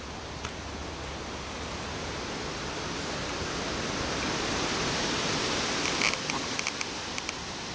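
Wind rushing through forest leaves: a steady hiss that swells slowly and then eases a little, with a few faint clicks about six seconds in.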